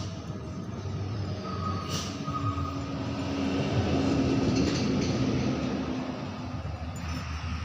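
A passing vehicle's engine rumble, swelling to its loudest about four seconds in and then fading.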